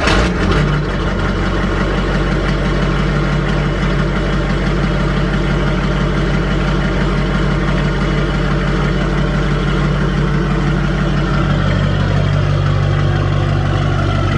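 6.6-litre LB7 Duramax V8 turbodiesel catching right at the start and settling into a steady idle. It is the first start after a new lift pump install, with the fuel system freshly primed and purged of air, and it fires up easily.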